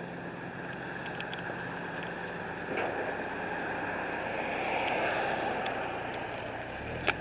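Steady outdoor background noise with a low hum under it, a few faint ticks, and one sharp click near the end.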